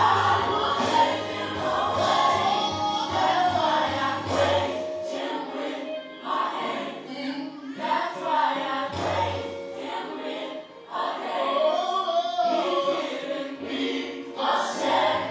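Gospel song with a choir singing over a band. The bass line drops out about a third of the way in and comes back near the end.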